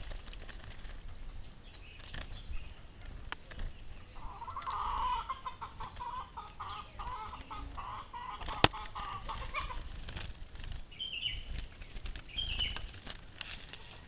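A chicken clucking in a rapid run of repeated calls that starts about four seconds in and lasts some five seconds. A single sharp click comes partway through, and two short high chirps follow near the end.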